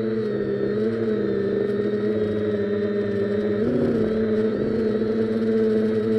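Multirotor drone's electric motors and propellers humming steadily, heard from the camera on board; the pitch dips and comes back briefly about four seconds in.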